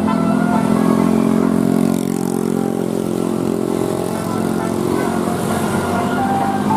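A bus's Basuri telolet musical horn sounding long held, chord-like tones that shift to new pitches about two seconds in, with short higher notes near the start and end, over vehicle noise.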